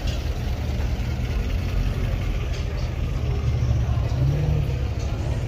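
A car engine idling with a steady low rumble, its pitch rising briefly about four seconds in.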